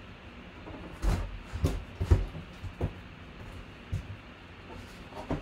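About half a dozen dull thumps and knocks at irregular intervals: objects being handled and set down on a hard surface.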